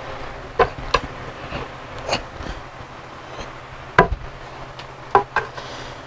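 Light metallic clinks, about six in a few seconds with the loudest near the middle, from hands working the exposed timing chain and cam sprockets of an engine being torn down, over a steady low hum.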